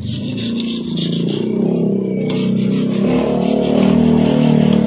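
The engine of a 15 kVA generator set running, a steady rapid clatter that grows a little louder toward the end.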